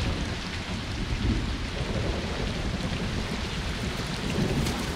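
Heavy rain pouring down, with thunder rumbling low beneath it in rolling swells.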